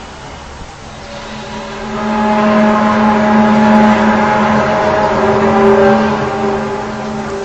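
A loud, steady droning tone with a stack of overtones swells in over about a second, holds, then eases near the end. It is one of the unexplained 'strange sounds' reported from the sky.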